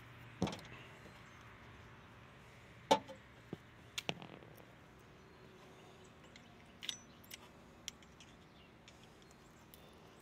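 Scattered metallic clicks and clanks of hand pliers and snips working on metal parts in a garden tractor's engine bay. The sharpest clank comes about three seconds in, with a few quick clicks around four seconds and a couple more near seven seconds.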